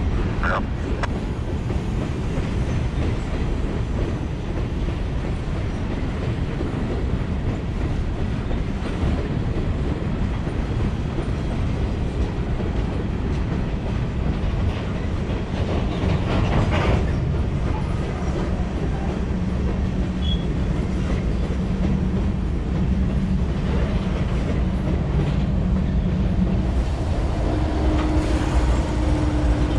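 Freight train of open hopper cars rolling past, a steady rumble with the clickety-clack of steel wheels over rail joints. Near the end the steady drone of Norfolk Southern diesel locomotives placed in the train joins in as they come by.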